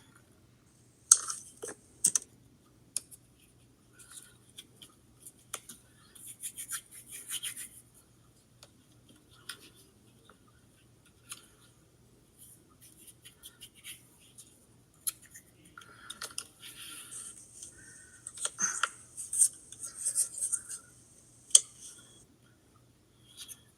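Small objects being handled on a hard surface: scattered light clicks and taps with stretches of scratchy rubbing and scraping.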